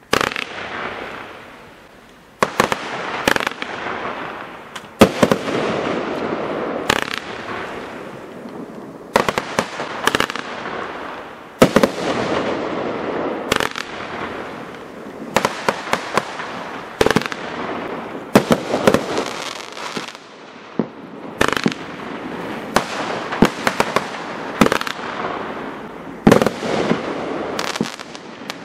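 A Winda 'Ta-Dah!' 36-shot, 500-gram consumer fireworks cake firing shot after shot: sharp pops in quick clusters every second or two, each followed by a dense hiss of crackle as the stars break.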